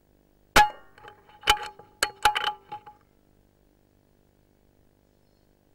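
Metal clanging: a sharp strike about half a second in, then a quick run of clinks and clangs that ring on at a fixed pitch, dying away about three seconds in.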